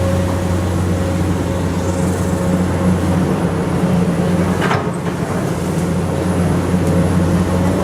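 Komatsu PC200 excavator's diesel engine running steadily under working load, with a sharp metallic clank about halfway through.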